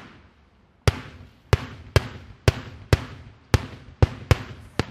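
Daytime fireworks shells bursting overhead in a rapid, uneven series of about nine sharp bangs, starting about a second in. Each bang has a short echoing tail.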